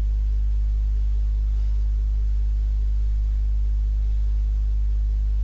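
Steady electrical mains hum, a deep 50 Hz drone with a stack of buzzing overtones, picked up by the recording setup, with faint hiss over it.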